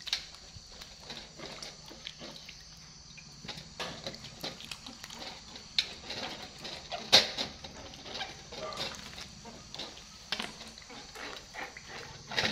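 Cucumbers being washed by hand in a metal basin of water: small splashes and scattered knocks of cucumbers against the basin, with one sharp knock about seven seconds in.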